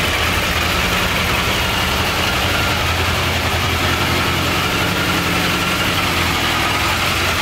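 Triumph Trophy 1200's inline-four engine idling steadily.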